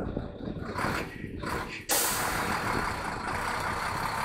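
Auman dump truck's diesel engine running, with a sudden loud hiss of air starting about two seconds in and continuing steadily.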